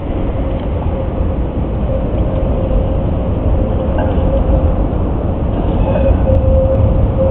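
Basel tram running through a curved street junction toward the listener, a steady hum over a heavy low rumble.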